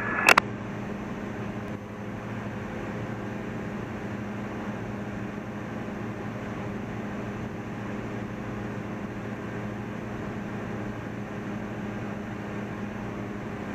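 Cessna 172's piston engine and propeller droning steadily in flight, an even, unchanging hum.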